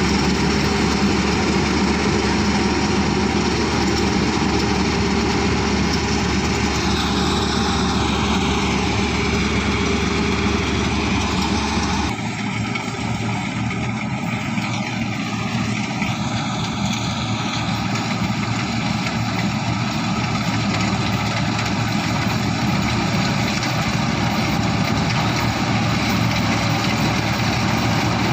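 Rice combine harvester's engine running steadily. About twelve seconds in the sound changes abruptly and loses much of its low rumble.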